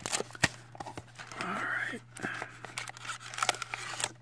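Cardboard card box and foil trading-card pack handled and pulled apart: rustling, crinkling and scattered sharp clicks, with a brief breathy vocal sound about one and a half seconds in.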